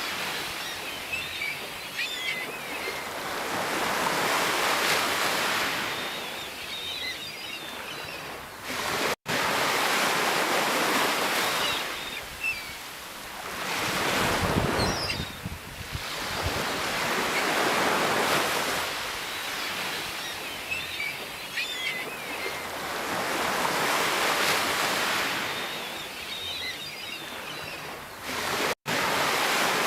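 Sea waves breaking and washing up on the shore, the surf rising and falling every few seconds. The sound cuts out for an instant twice.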